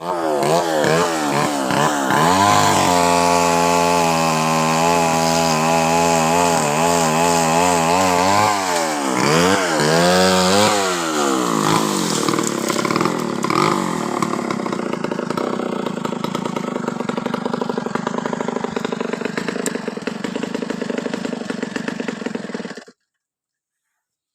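Two-stroke chainsaw revving up and down, held steady at high revs, then running rougher and lower-pitched for about ten seconds, as when the chain is cutting into wood; the sound cuts off abruptly near the end.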